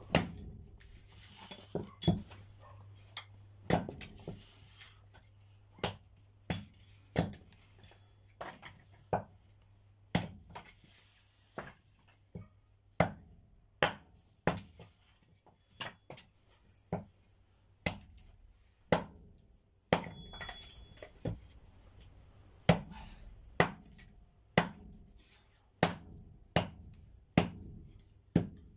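Wood being chopped with an axe: a steady series of sharp blows, about one a second, as firewood is split into smaller pieces.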